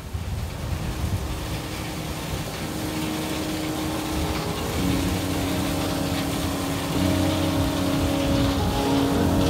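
John Deere 9500 combine running while harvesting corn: a steady engine drone with a few held hum tones that grows gradually louder.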